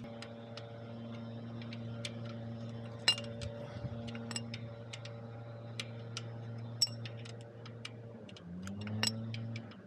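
Scattered light metallic clicks and taps of a hand wrench and small bolts being threaded back into a Harley-Davidson Sportster's forward-control mounts, over a steady low hum that slides up in pitch near the end.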